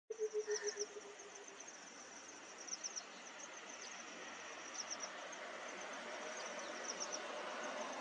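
Outdoor natural ambience: high thin chirps of small birds or insects come in short clusters of two to four, over a steady hiss that slowly grows. A short low note sounds for about the first second and a half.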